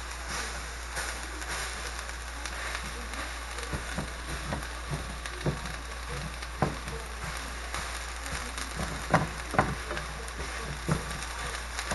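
Flour-dredged tomato slices sizzling in butter and olive oil in a skillet, with a red slotted spatula scraping and knocking against the pan as it breaks them up. The knocks come irregularly, the two loudest close together late on.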